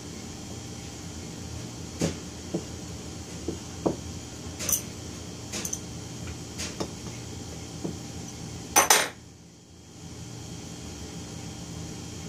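Scattered clinks and knocks of small metal engine parts and the painted engine block of a Stuart Sirius model steam engine being handled and set down on a workbench: about ten in all, the loudest a quick double clatter about nine seconds in, over a steady background hum.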